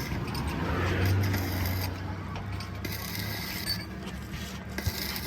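Mechanical clicking and light metal clinks from repair work on a truck, over a low steady hum, with a single sharp knock near the end.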